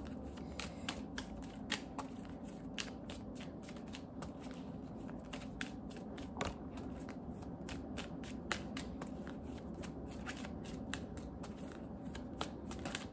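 A deck of tarot cards being shuffled by hand: soft, irregular clicks of cards slipping against each other, several a second.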